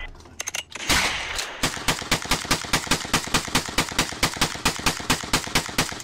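Gunfire: a loud shot about a second in, then rapid, evenly spaced shots, about five a second, until the end.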